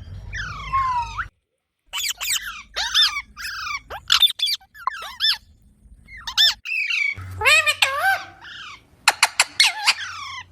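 Parrot making a rapid string of short squawks and chirps with sharply sliding pitch, in several bursts broken by brief gaps.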